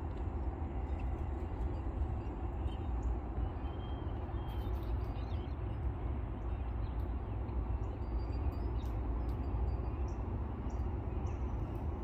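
Faint, scattered chirps and short calls of songbirds over a steady low outdoor rumble.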